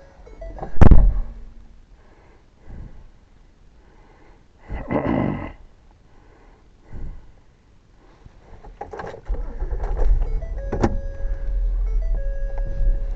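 A single loud thunk about a second in, then a few softer knocks and a short rustle, and from about nine seconds a steady low rumble.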